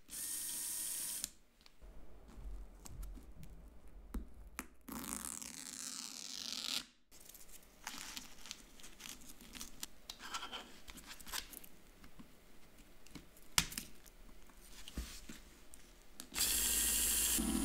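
A small Lego Power Functions electric motor is switched on at the battery box and spins its gear train for about a second, then stops. Handling clicks follow, and a strip of sandpaper is torn off in a rip lasting about two seconds. Near the end the motor starts again and runs steadily, turning a sandpaper-wrapped wheel.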